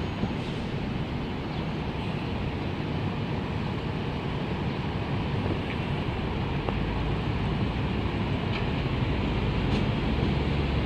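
Street traffic: a city transit bus's engine running at a corner while cars pass, a steady low rumble that grows stronger in the second half.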